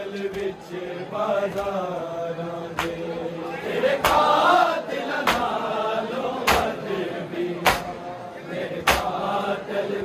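Male mourners chanting a nauha (Shia mourning lament) together, with their hands striking their chests in unison in matam. From about three seconds in, the slaps fall in a steady beat, about one every 1.2 seconds.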